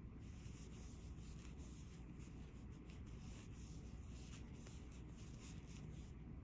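Very faint rustle and scrape of a crochet hook drawing yarn through stitches, over a low steady room hum.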